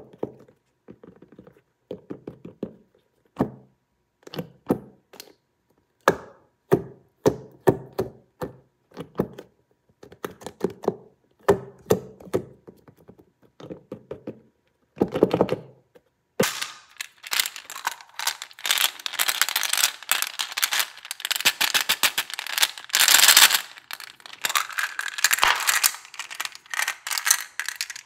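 A soft rubbery squishy toy is squeezed and handled, giving a string of short separate squishing and tapping sounds. About sixteen seconds in, this gives way to a dense, continuous rattling clatter of many small hard balls tumbling in a plastic tub, which grows louder near the end.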